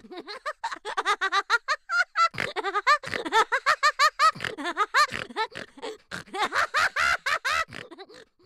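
A person laughing: quick, repeated high-pitched giggles.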